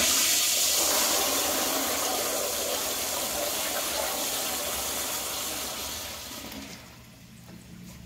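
Commercial flushometer-valve toilet flushing as a test after a clog. Water rushes into the bowl and swirls down, with the rushing fading over about six seconds.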